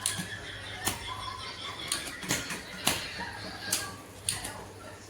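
Irregular sharp clicks and taps, about eight spread unevenly, over a low steady hum.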